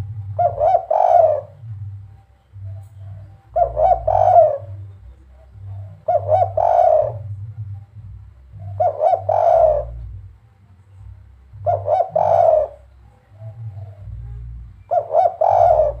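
Spotted dove (derkuku) singing its 'kuk 3' coo, a short phrase of several notes repeated six times, about every three seconds.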